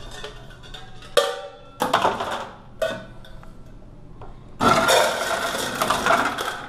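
Ice machine dropping ice cubes into a stainless steel ice bucket: a loud rattling rush of ice lasting about two seconds near the end. Before it come a few sharp knocks with a short ring.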